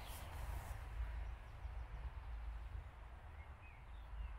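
Faint outdoor ambience: a low steady rumble with a light hiss, and a few faint bird chirps in the second half.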